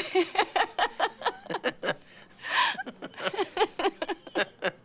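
A woman laughing in a run of short, quick chuckles, with a breathy in-breath about halfway through before the chuckling goes on.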